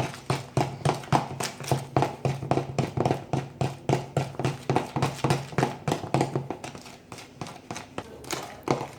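Spoon knocking and scraping against a bowl in a quick, even rhythm of about three to four strokes a second while stirring a stiff milk-powder, cream and sugar mixture; the strokes grow softer near the end.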